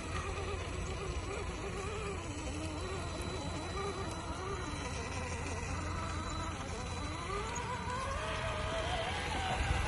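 Small electric motor whining, its pitch wavering up and down, then rising steadily near the end as the throttle is opened.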